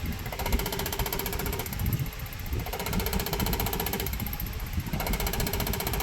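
Delphi diesel injector on a test rig clicking rapidly as it fires, in bursts of about a second to a second and a half with short pauses, over the steady running of the tester's motor. The injector is now opening at the right pressure after repair.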